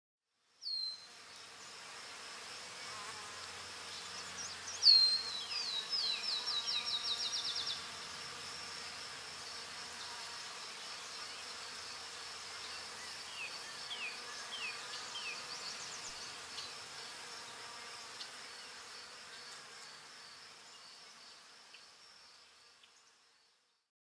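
Outdoor insect chorus: a steady high-pitched buzz that fades in and out. About five seconds in comes a rapid run of short, falling chirps that speeds up, and a few more single chirps follow later.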